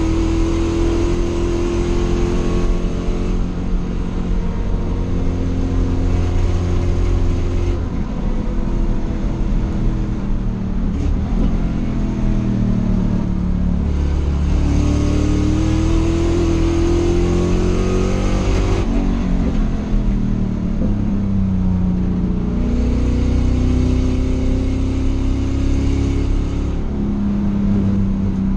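Race car engine heard from inside its stripped cockpit while lapping a track, its pitch rising under hard acceleration and falling off for corners, with three long climbs in pitch.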